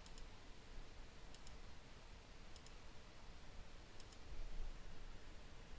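Faint computer mouse clicks, a few single and paired clicks, over a low steady hiss.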